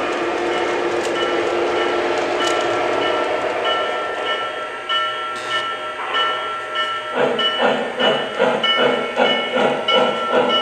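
An O-scale model steam locomotive's onboard sound system with its bell ringing over and over. About seven seconds in, steady exhaust chuffs start, about two and a half a second, as the locomotive gets under way.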